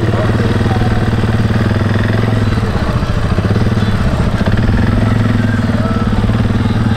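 Suzuki KingQuad ATV's single-cylinder four-stroke engine running steadily at low revs as the quad rolls slowly across sand.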